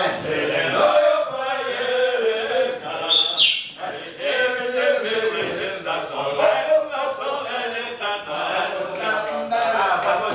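Several men's voices chanting together, with a brief high whistle-like tone about three seconds in.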